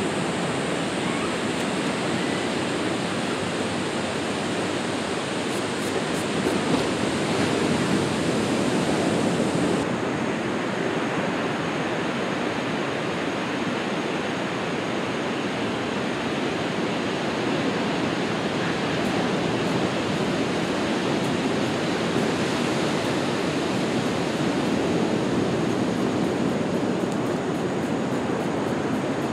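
Steady rushing sound of water in the rainforest, an even noise that keeps on without let-up.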